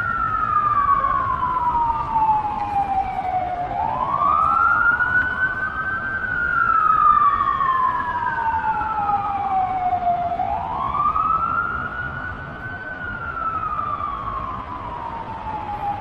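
A siren wailing, its pitch rising over a couple of seconds and falling slowly over about four more, in cycles of about six and a half seconds, with two overlapping tones.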